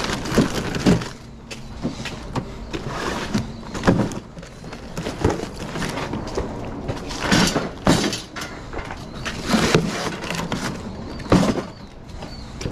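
Shrink-wrapped cases of plastic drink bottles being lifted and set down on a metal delivery cart: irregular thumps and crinkles of plastic wrap every second or two.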